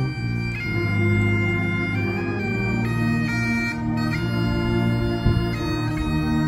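Bagpipes playing a slow tune, the melody moving note to note over their steady drones.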